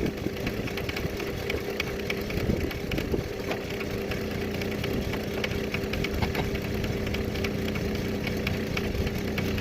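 An engine idling steadily, with scattered light metallic clanks and knocks on top.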